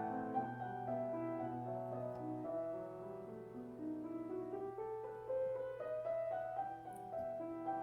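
Soft solo piano background music, a slow melody of held notes. A faint steady low hum runs under it.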